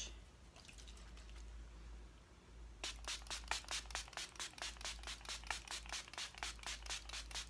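Makeup setting spray from a pump bottle spritzed over and over in a quick, even run of short hissing sprays, about five a second. The run starts about three seconds in and lasts about four seconds.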